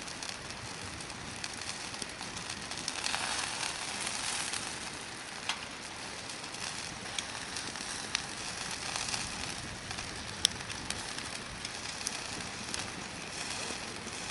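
Hardwood campfire burning and crackling, with sharp pops from the wood now and then, the loudest about ten seconds in. A louder stretch of hissing about three seconds in.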